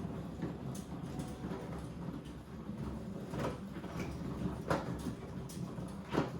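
Household handling noises: a steady low rumble with three short knocks or slides, the last near the end the loudest.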